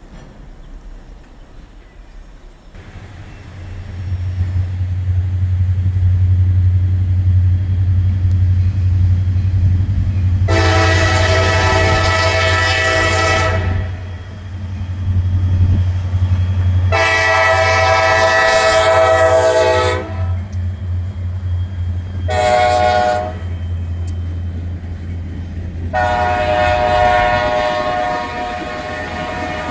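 Wheeling & Lake Erie diesel freight locomotive approaching with its engine rumbling, sounding its multi-tone air horn in the grade-crossing pattern: two long blasts, one short, and a long one held at the end.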